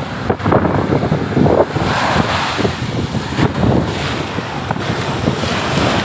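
Rough high-tide surf breaking and washing up over rocks and sand, with strong wind buffeting the microphone. The hiss of the wash grows fuller about two seconds in.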